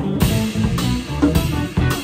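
Live instrumental trio of electric guitar, electric bass and drum kit playing together. Cymbal strikes come in just after the start and keep returning in pulses over the guitar and bass notes.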